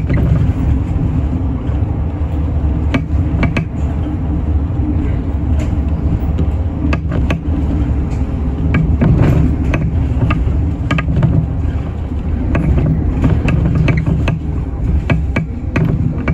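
City bus driving along the road, heard from inside near the front: a steady low rumble of the engine and running gear, with scattered clicks and rattles from the bus interior.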